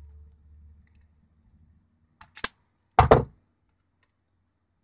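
Automatic wire strippers clacking as they are squeezed and spring open: two quick sharp clicks a little past two seconds in, then a louder double clack about three seconds in.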